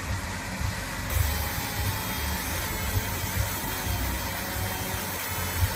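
Fiber laser marking machine running while it engraves a pistol slide: a steady hiss with several thin high whines, growing brighter about a second in, over an irregular low rumble.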